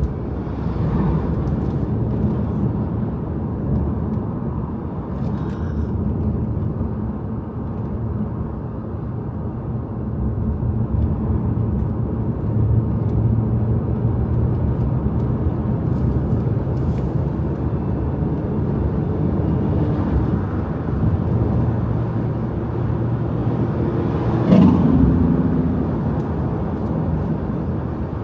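Car cabin noise while driving: a steady engine hum and tyre rumble from the road, with one brief louder thump near the end.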